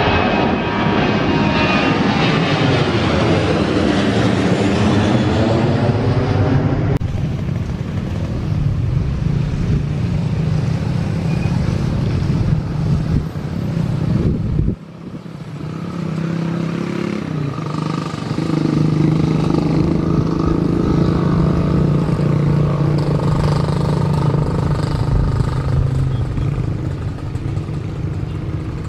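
Twin-engine jet airliner climbing out overhead after takeoff, its engine noise loud with a sweeping, wavering pitch, cut off suddenly about seven seconds in. Then the steady engine hum of a jet airliner on final approach to land, with another cut about halfway through.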